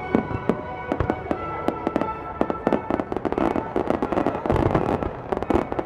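Fireworks finale: many shells bursting in quick, overlapping bangs and crackles. Music with held notes plays underneath.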